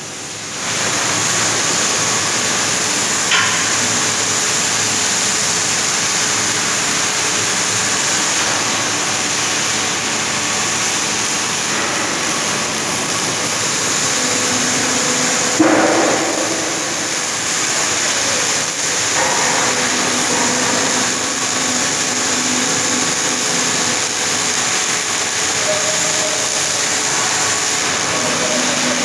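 Hydraulic drive of a telescopic motoryacht crane running steadily as the boom extends, with a short knock about three seconds in and a louder one around sixteen seconds.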